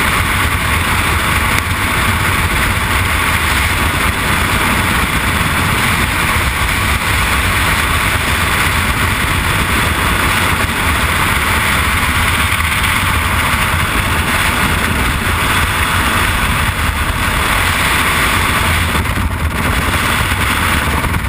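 Freefall airstream blasting over the camera's microphone: a loud, steady rush of wind noise.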